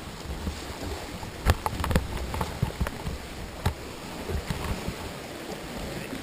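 Sea kayak being paddled: paddle strokes and water sloshing against the hull, with a few sharp knocks, the loudest about one and a half seconds in.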